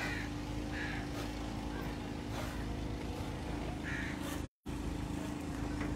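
A steady low motor-like hum with a constant tone, with a few short higher chirps over it; the sound cuts out completely for a moment about four and a half seconds in.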